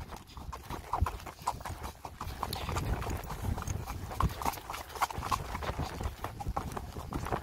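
Hoofbeats of a ridden horse moving along a dirt trail, a quick, uneven run of thuds several times a second.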